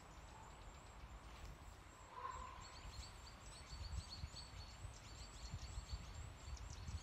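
Faint woodland bird calls: a crow calls once about two seconds in, and from then on there is faint, high, rapid chirping.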